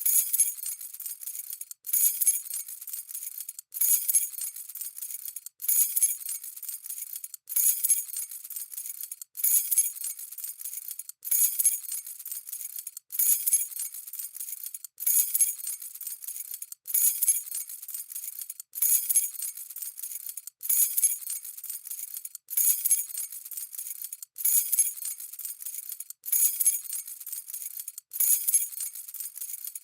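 A bunch of keys jangling, the same shake repeated about every two seconds: each starts with a bright burst of jingling and thins out to light clinking before a brief break.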